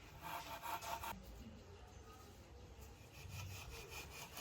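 Rapid rhythmic scraping or rasping, a tool rubbing on a rough surface, in two spells: one of about a second at the start, another over the last second or so.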